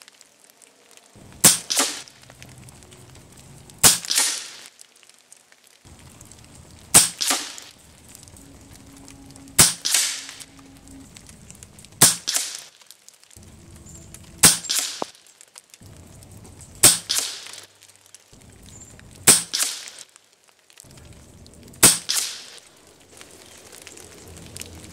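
RTI Arms Priest 2 regulated .22 PCP air rifle firing nine shots at a steady pace, about one every two and a half seconds, each a sharp crack.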